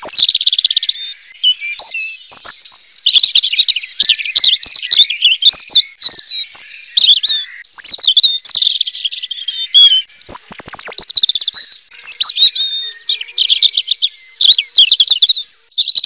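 Red-billed leiothrix (Pekin robin) singing: a fast, continuous run of warbling phrases, with notes sliding quickly up and down.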